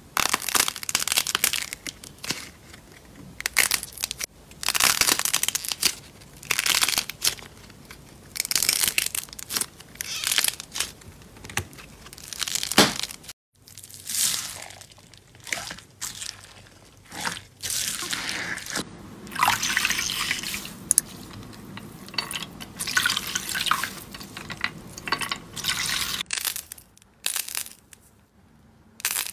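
Slime and foam-bead slime being squeezed, pressed and pulled apart by hand, making a run of irregular wet crackling and squishing sounds, each lasting about half a second to a second.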